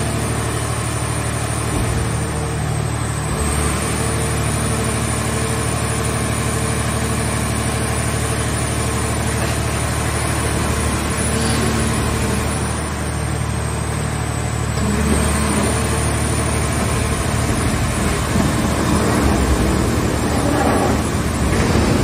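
Hydraulic car-shell baler running: the steady drone and pump whine of its hydraulic power unit as the press lids close over the scrap car body. The high whine dips briefly twice, and the noise grows louder and rougher in the last several seconds as the press works.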